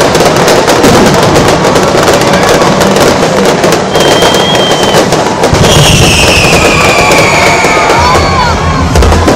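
Aerial fireworks crackling densely overhead, a rapid, unbroken spatter of small reports from glitter and crackle stars, very loud. A long falling whistle sounds over the crackle from about halfway through.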